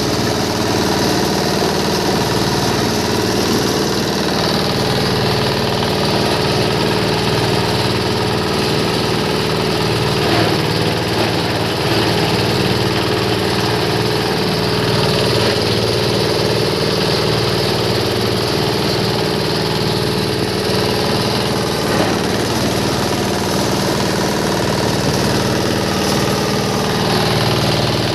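Fabric and foam waste shredder running steadily while grinding rags and foam scraps, a continuous motor hum with a couple of faint brief knocks.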